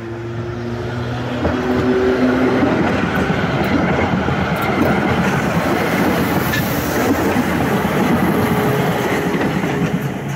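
Schindler-built BLT articulated tram passing close by. Wheels rumble and clatter on the rails, with a faint whining tone over them. It gets louder over the first second or two, holds steady, and fades near the end as the last car goes past.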